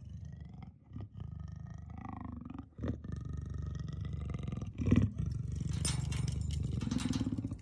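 Leopard giving an aggressive snarling growl: a low, pulsing rumble throughout, with a sharper, louder snarl about five seconds in.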